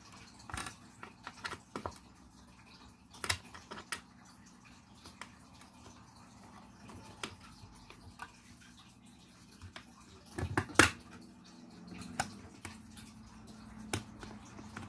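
Scattered clicks and clunks of a Cerberus Pyrotronics MS-51 fire alarm pull station being reset by hand, its cover and pull handle worked back into place. The loudest clunks come about eleven seconds in.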